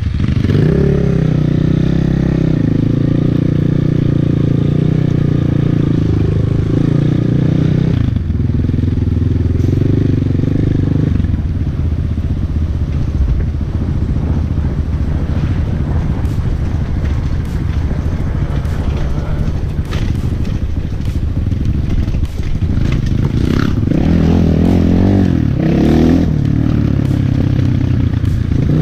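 Off-road motorcycle engine running close to the microphone while under way, its pitch rising and falling a couple of times near the end as the revs change.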